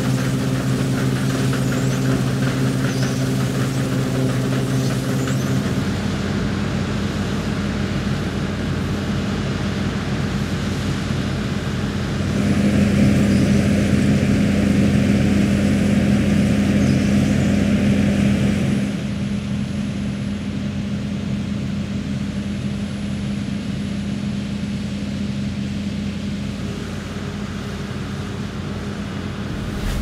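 New Holland TC5.90 combine harvester running steadily while harvesting barley: a continuous engine and threshing drone. Its tone and loudness shift a few times, loudest for a stretch in the middle.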